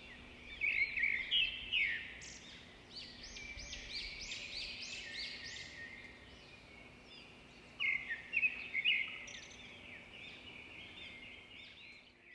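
Small birds chirping and twittering in quick, dense calls, louder in two spells, about a second in and again around eight seconds.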